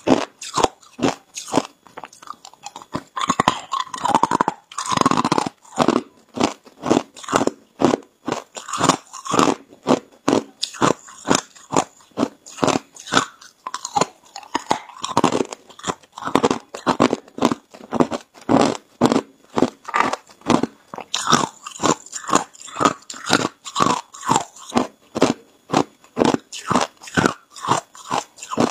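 Hard clear ice being bitten and chewed close to a clip-on microphone: a fast, unbroken run of sharp crunches, about two a second.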